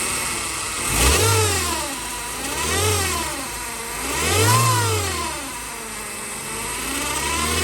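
Chevrolet Cruze 1.8 engine blipped three times and then revved again near the end, with a high whine that rises and falls with engine speed, said to sound like an airplane. The whine is the transmission fault the car is in for.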